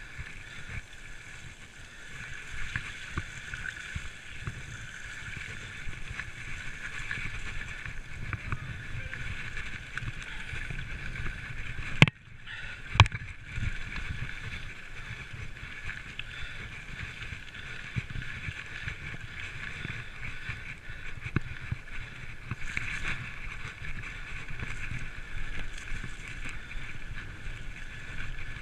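Full-suspension mountain bike ridden over a rough, muddy dirt track: steady riding noise with constant small knocks and rattles, some wind on the microphone and splashing through puddles. Two sharp, loud knocks come about twelve and thirteen seconds in.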